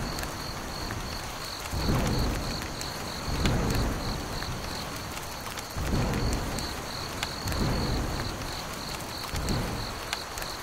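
Rain falling steadily, with low rolls of thunder about every two seconds. A faint, fast-pulsing high tone runs underneath.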